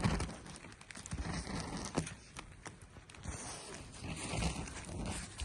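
Hail-like snow pellets ticking and pattering irregularly on the tent fabric, heard from inside the tent.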